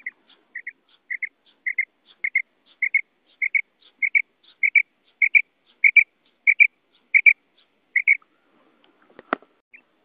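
Female common quail calling: a steady series of short paired notes, about two pairs a second, growing louder. The calls pause near the end, where one sharp click sounds.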